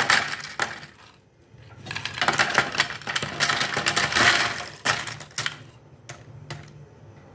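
Crisp plantain chips crackling and clattering as rapid clicks, in bursts with short pauses and a few single sharp clicks near the end.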